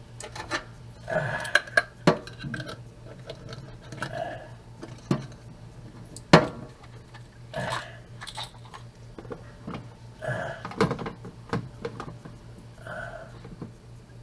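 Small jars filled with gravel being handled and set down in a stainless steel sink: scattered clinks and knocks, the sharpest about six seconds in.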